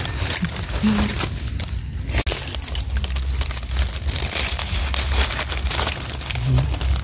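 Dry fallen leaves crackling and rustling, again and again, as hands and a knife push through the leaf litter to dig out a mushroom, over a low rumble.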